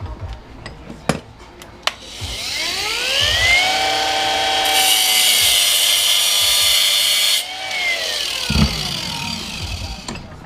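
Electric grinder spinning up with a rising whine, then grinding into a steel lock ring for about three seconds with a loud hiss, then winding down.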